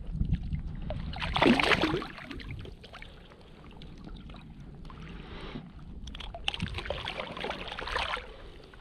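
Shallow bay water sloshing and splashing close to the microphone while someone wades or handles something in it. There are two louder bursts of splashing, one about a second and a half in and another about six and a half seconds in.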